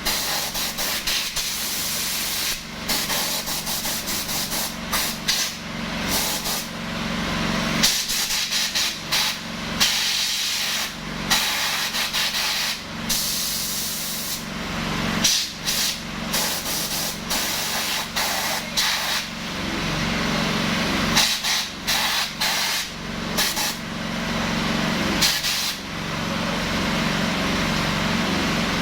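Honda GXH50 single-cylinder four-stroke engine running a mini striker fire pump, with the high-pressure water jet hissing loudly over the engine hum. The spray noise cuts off and comes back many times in quick spurts.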